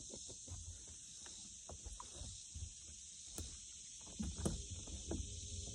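Scattered soft knocks and clicks from handling a spinning rod, reel and lure, a few of them louder about four seconds in, over a steady high drone of summer insects.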